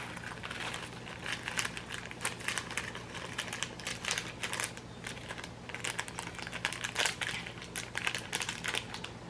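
Plastic instant-noodle sauce or flake packet crinkling and rustling as it is handled and emptied, an irregular run of small crackles.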